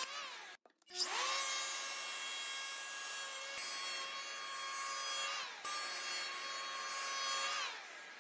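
Festool HL 850 E electric hand planer cutting a rebate along a wooden beam. The motor whine cuts out briefly just after the start, rises as the motor spins up about a second in, holds steady through the pass with a short dip midway, and falls in pitch as the motor winds down near the end.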